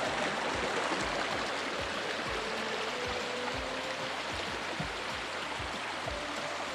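Steady rushing of a waterfall-fed mountain stream, an even unbroken roar of water with no let-up.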